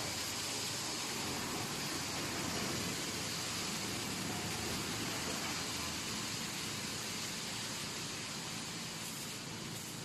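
Steady machine noise from an automatic steel wire mesh welding machine running in production: an even hiss with a low hum underneath and no distinct strokes.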